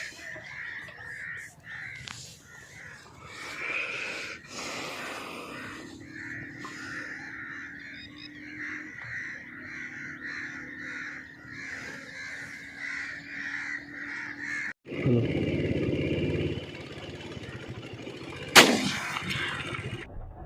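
Many birds calling steadily, with cawing calls among them. About three quarters of the way through, a low rumble lasts around two seconds, then a single loud shotgun shot rings out.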